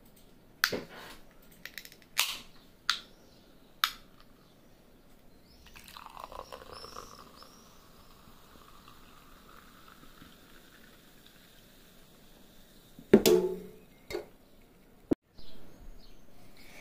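Cola poured from a can into a glass, fizzing steadily for about six seconds as the foam rises. A few sharp clicks come before it, and one loud knock follows near the end.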